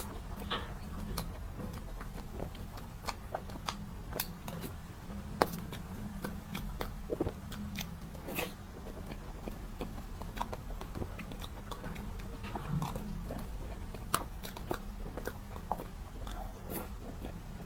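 Close-miked eating of a soft strawberry cream box cake: scattered wet mouth clicks and smacks of chewing over a steady low hum.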